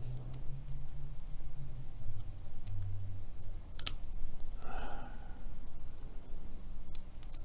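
Scattered small metallic clicks of a lock pick and tension wrench working the pin stack of a Master Lock Pro Series 7050 padlock, with one sharper click about halfway through. A faint breath or murmur comes just after it.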